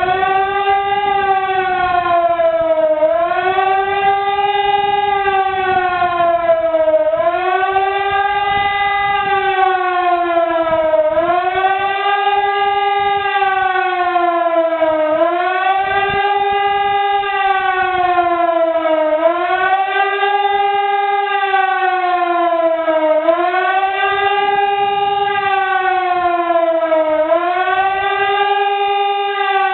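EPS2400 electronic siren sounding the German 'Warnung' warning signal during a siren test. A loud wailing tone rises quickly, then falls slowly, and repeats about every four seconds.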